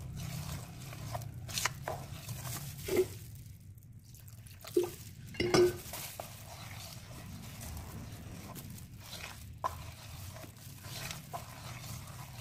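Thin flour-and-coconut-milk batter being stirred in a bowl: wet swishing with scattered clinks and knocks of the utensil against the bowl, the loudest about five and a half seconds in.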